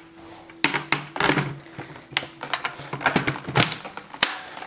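Irregular sharp clicks and knocks of plastic parts on a Shark vacuum being handled, with a faint steady low hum underneath.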